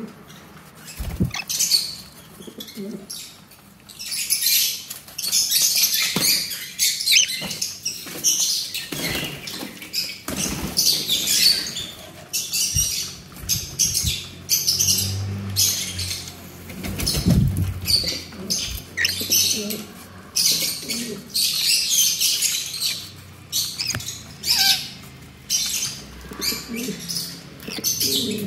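Guinea pigs and parrots, sun conures and a lorikeet, biting and chewing a whole apple up close: repeated bursts of crisp crunching and nibbling that come in quick clusters.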